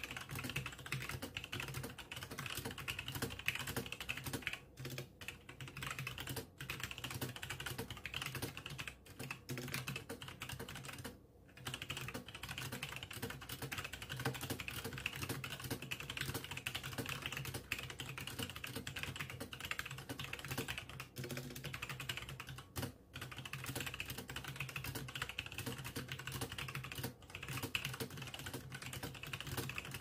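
Fast continuous typing on a Logitech G Pro mechanical keyboard with Romer-G tactile switches: a dense run of key clicks with a few brief pauses. The owner finds that each keystroke carries a ping.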